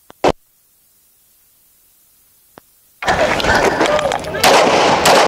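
A rapid string of pistol shots starts about three seconds in and runs for a little over two seconds, the shots coming so close together that they nearly run into one another.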